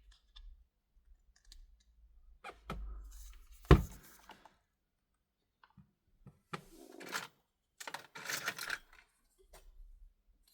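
Hand tools clicking and scraping against an iPhone X's screen and frame while prying at the display, with one sharp, loud click a little under four seconds in.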